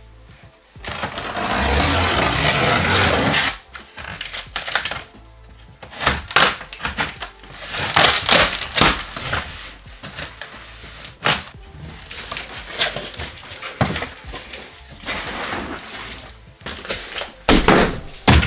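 A taped cardboard shipping box being unpacked. A long ripping noise about a second in, packing tape being torn off, is followed by repeated knocks, thunks and rustles of cardboard and the contents being handled, with background music.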